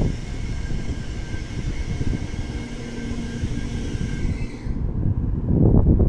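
Low, steady running rumble of a Tokaido Shinkansen train heard inside the passenger car, growing louder near the end.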